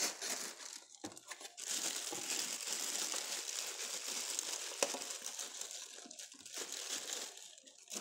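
Clear plastic packaging bag crinkling as hands work it off a plastic blender jar, with one sharp click about five seconds in.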